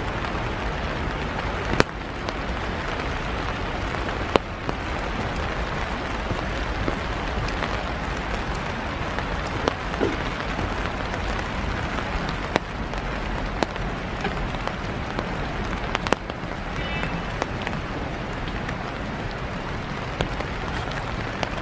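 Steady light rain pattering, with single sharper drop hits every few seconds.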